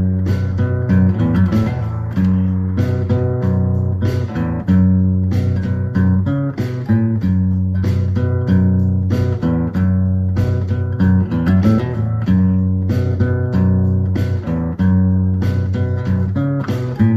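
Background music: strummed guitar over a steady bass line with a regular beat.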